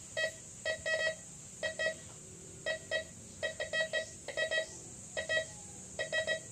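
MD 4030 metal detector beeping as a gold ring is swept past its search coil: short pitched beeps in pairs and small clusters, repeating with each pass. This is its response to gold, which the owner describes as soft and not shrill.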